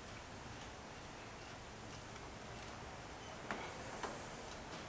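Faint, sparse metallic clicks of hand tools working a glow plug loose on an OM642 diesel engine, with two louder clicks about half a second apart near the end.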